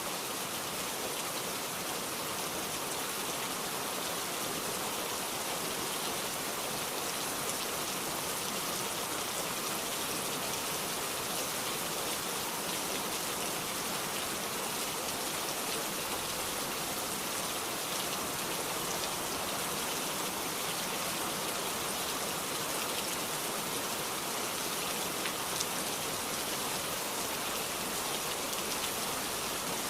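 Heavy rain in a steady downpour: an even hiss of countless drops with fine patter, unchanging in strength.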